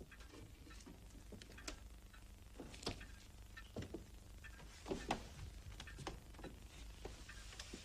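Irregular footsteps and light knocks on a floor, with a few louder steps or knocks in the middle, over a faint steady low hum.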